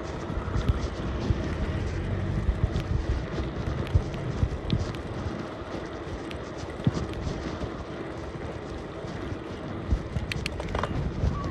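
Bicycle being ridden: a steady rumble of tyres and wind on the microphone, with irregular clicks and knocks as the bike rattles over the path.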